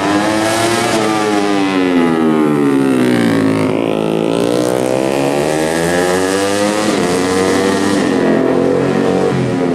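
Racing motorcycle engines revving hard as the bikes accelerate and brake through tight corners. The pitch rises and falls in long sweeps, and more than one bike is heard at once.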